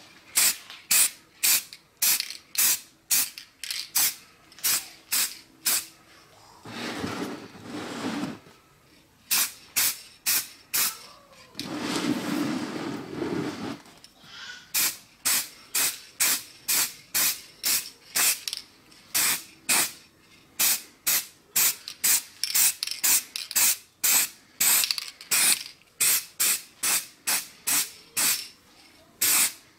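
Aerosol spray-paint can hissing out paint in short, quick bursts, about two a second, as plastic drill housing halves are given a coat of yellow. Twice the bursts give way to a longer, deeper rushing noise lasting a second or two: once about a quarter of the way in and once near the middle.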